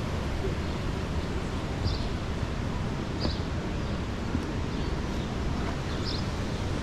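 Steady wind buffeting the microphone over outdoor ambience, with a few short, high bird chirps scattered through it.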